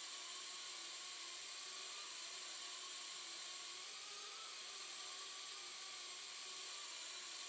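Small FPV whoop drone's motors and propellers whining steadily, with a high hiss and a pitch that wavers gently up and down.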